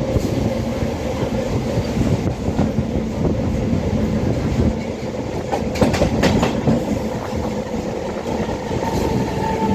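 Howrah Rajdhani Express train running on the track: a steady rumble with wheels clicking over rail joints, a quick run of sharper clacks about six seconds in, and a faint steady whine joining near the end.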